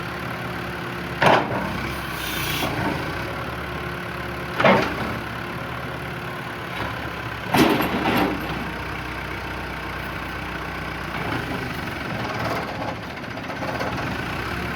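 New Holland LB115 backhoe loader's four-cylinder diesel engine idling steadily. It is broken three times by a short, loud knock or clank, about a second in, at about the middle, and a few seconds later.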